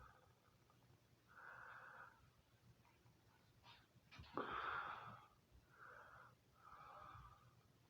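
Faint breathing of a person with a head cold, heard close to the microphone: about four soft breaths, the loudest a little past halfway.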